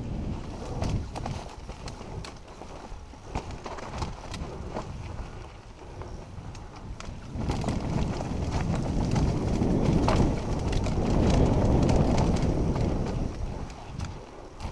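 Mountain bike clattering down a rocky trail: irregular clicks and knocks from the tyres striking stones and the bike's parts rattling, over a low rumble that swells louder for several seconds in the second half.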